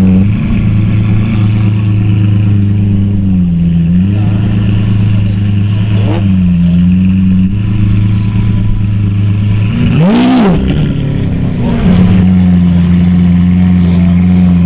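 Lamborghini Aventador's V12 engine idling through a loud aftermarket exhaust, with one quick throttle blip about ten seconds in that rises and falls in pitch before settling back to idle.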